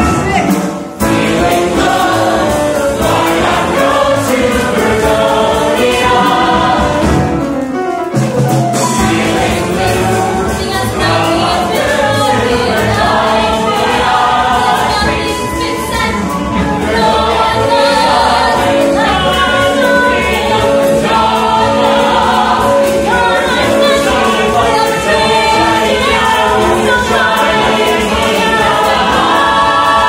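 Ensemble cast of a stage musical singing together as a chorus, with live band accompaniment, briefly dropping off twice, about one and eight seconds in.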